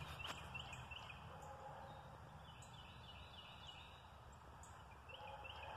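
Faint birdsong from the trees: runs of short, high, stepped notes repeated several times, over a steady low rumble.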